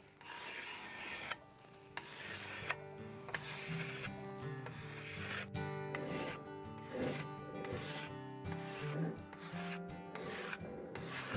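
Hand scraper strokes along a hickory axe handle, a repeated dry scrape about one or two strokes a second, smoothing the wood to a finished surface. Background music plays underneath.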